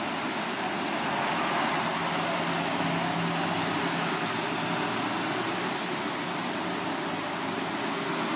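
Steady street noise: traffic passing on a wet road, a continuous hiss with no distinct events.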